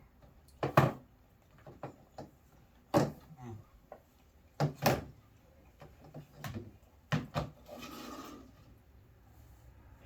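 Cutlery and bowls knocking on a table: several sharp, irregularly spaced knocks, the loudest about a second in, with a brief rustle near the end.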